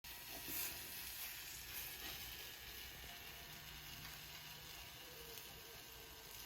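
Faint, steady sizzling of food cooking on a hot pan, with a few light crackles.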